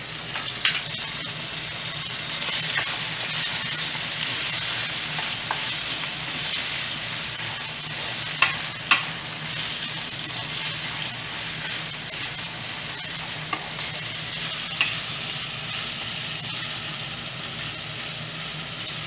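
Mutton mince with onions and spices sizzling in hot oil in a kadai while a wooden spatula stirs and scrapes it through. A steady hiss, broken by a few sharp clicks, the loudest two near the middle.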